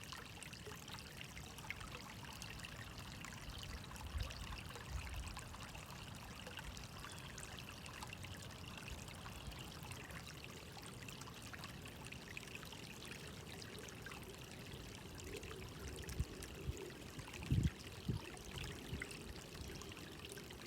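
Running water trickling and splashing steadily. A few dull low thumps come about four seconds in and again near the end.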